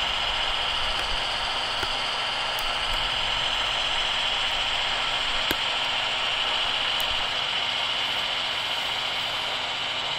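Model train running slowly along the track. The Brawa V 100 model diesel locomotive's electric motor whirs steadily, with a few faint clicks as the wheels pass over the rails.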